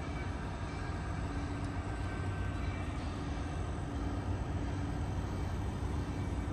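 Steady rumble of road traffic crossing the elevated highway bridge overhead, heaviest in the low end, with a few faint steady tones above it.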